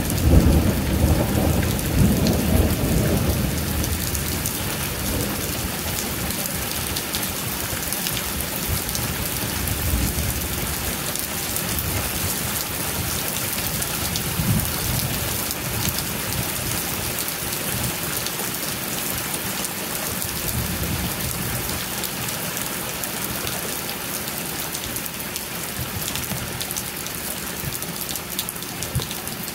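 Steady rain falling, with a low roll of thunder in the first few seconds that fades away; fainter low rumbles swell and die a few times after.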